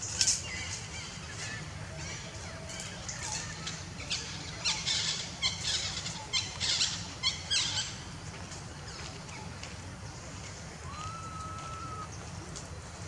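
Wild birds calling in the trees: a quick run of sharp, high chirps around the middle and a short whistled note near the end, over a steady low background rumble.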